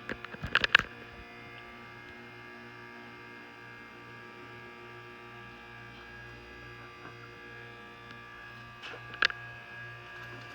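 Dover hydraulic elevator's pump motor running with a steady electric hum. A few sharp clicks come in the first second, and one more sharp click comes about nine seconds in.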